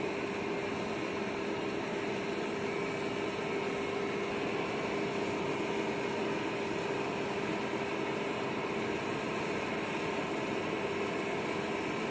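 Steady machinery noise with a constant droning tone underneath, while the Super Guppy's hinged nose section swings open.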